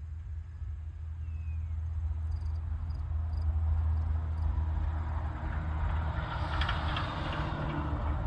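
Low engine hum and rumble of a motor vehicle passing, its noise swelling about six to seven seconds in.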